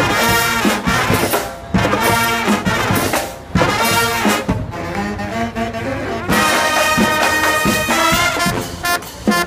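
Brass band playing, horns in short, loud phrases broken by brief pauses, with sharp accented hits.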